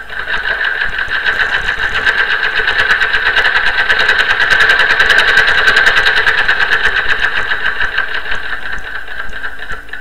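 Sewing machine running fast, its needle strokes making an even rapid clatter of about eight to ten a second. It grows louder toward the middle and eases off slightly near the end.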